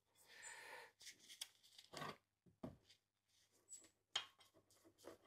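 Near silence with faint scattered clicks and rustles of small handling noises, the sharpest about two seconds in and again about four seconds in.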